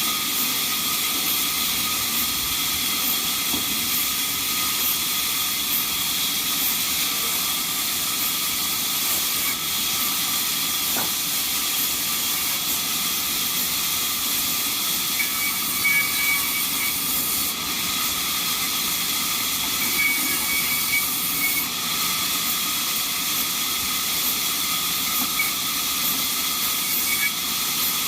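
Band sawmill running: a steady hissing machine noise with a faint constant high whine.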